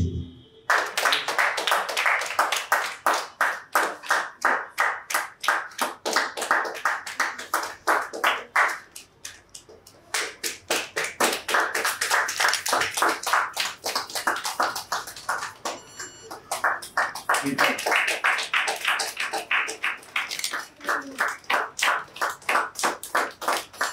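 A small audience clapping in a steady, even rhythm, about four to five claps a second, dropping away for about a second partway through and then picking up again.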